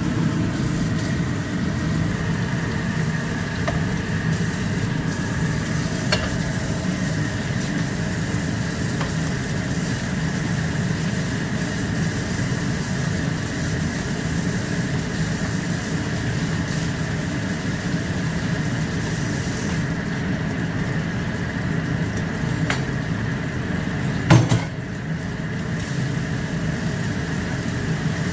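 Leafy greens sizzling in a frying pan as they are stirred and turned with a spatula over a gas burner, over a steady low hum. A single sharp knock stands out about three-quarters of the way through.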